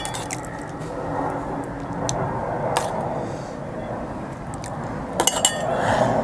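Dishes and cutlery clinking against a plate during a meal, with single clinks and a quick run of several clinks about five seconds in.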